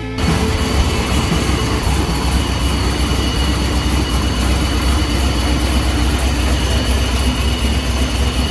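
1994 Corvette's LT1 V8 idling steadily with its ZF manual transmission in neutral, carrying a light gear noise that comes from the single-mass flywheel and unsprung clutch.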